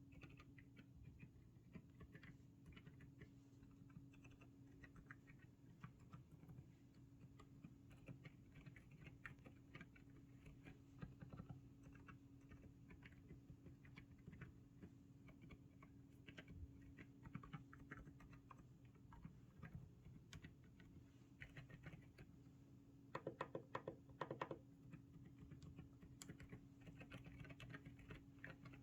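Typing on a GMK67 mechanical keyboard fitted with Outemu Silent Cream Yellow Pro V2 silent switches: quiet, scattered keystrokes, with a louder rapid flurry of keys about 23 seconds in.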